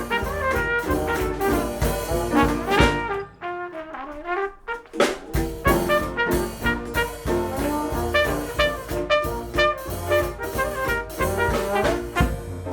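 Live Dixieland jazz band of trumpet, drums, piano and banjo playing an up-tempo ensemble chorus, with the trumpet leading. About three seconds in, most of the band drops out for a short break of under two seconds, then the full band comes back in.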